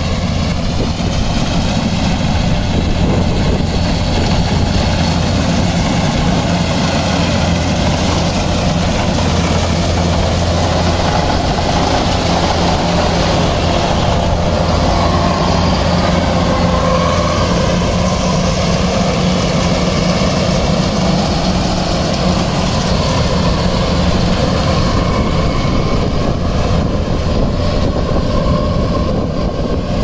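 Kubota DC-93G crawler combine harvester running steadily while it cuts and threshes rice: a loud, even drone with a deep hum underneath.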